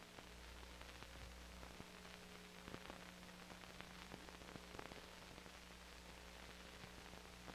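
Near silence: faint steady hiss and low hum of the film-to-tape transfer, with scattered faint clicks.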